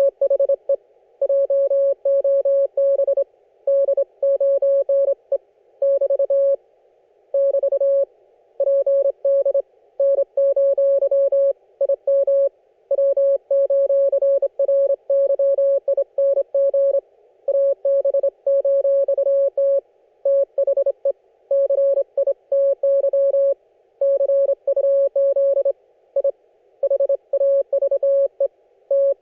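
Morse code (CW) from an Icom IC-718 transceiver: a single mid-pitched tone keyed on and off in dots and dashes, grouped into characters and words with short gaps between them.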